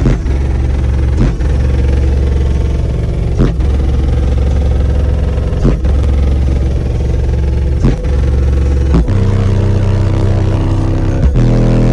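A wall of CT Sounds Strato 8-inch subwoofers in a ported enclosure playing a bass demo loudly, heard from inside the vehicle. Deep held bass notes step to a new pitch every one to two seconds, with a click at each change.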